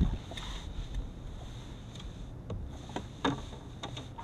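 Low, steady rumble of wind on the microphone aboard a fishing boat, with a few faint clicks and knocks on the boat.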